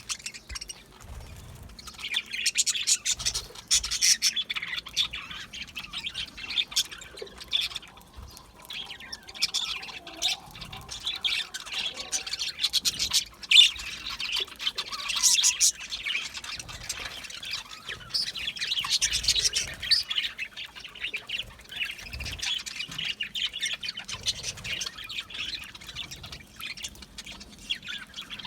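Budgerigars chattering and chirping: rapid high twittering that comes in bouts of a few seconds, with one sharp, louder note about halfway through.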